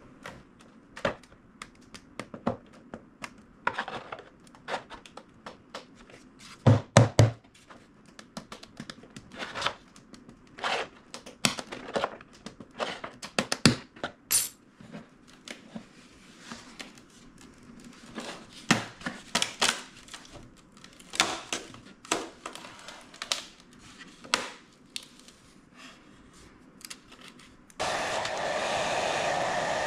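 Scattered clicks, taps and knocks of a ruler being worked under the lip of a battery hatch whose seams are epoxied shut, as it is pried at to break it free, with a couple of louder thuds about seven seconds in. Near the end a hand-held hot-air blower switches on and blows steadily.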